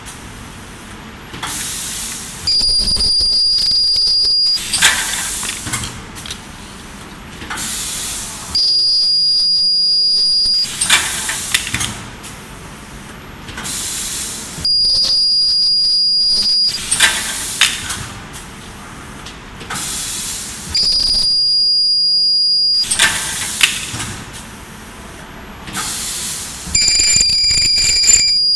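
Automatic rotary-table plastic reflector welding machine cycling about every six seconds. Each weld gives a loud, steady, high-pitched tone lasting about two seconds, five times in all, with short air hisses between them.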